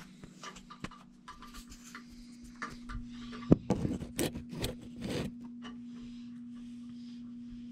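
Rubbing and handling noise from a camera being moved and repositioned, with a few sharp clicks and knocks about three and a half to five seconds in, over a steady low hum.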